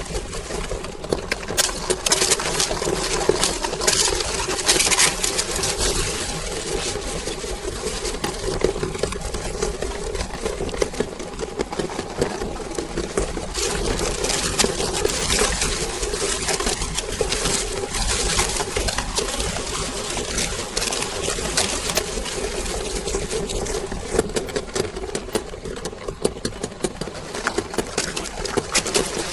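Electric meat grinder motor running steadily with a constant hum while crunching mini ice cream cones, with dense irregular crackling from the brittle wafer being crushed.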